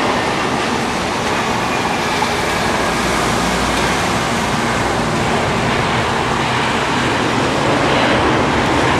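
Twin-engine jet airliner landing on a wet runway: a steady rushing roar of engines and tyre spray, swelling a little near the end.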